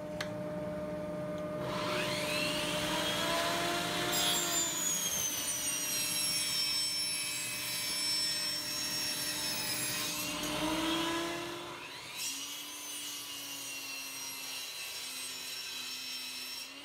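Benchtop table saw cutting laminated board panels to size, its motor humming steadily under a high blade whine. The cutting is loudest from about two seconds in until about twelve seconds, then drops to a lighter, quieter run.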